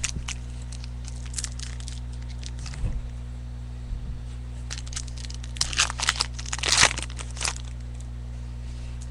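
Trading-card pack wrapper crinkling and tearing as cards are handled, in scattered crackles that come thickest about six to seven seconds in. A steady low hum runs underneath.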